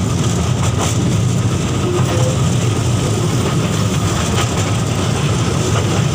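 Ride-on toy train running along its track: a steady low rumble with faint scattered clicks.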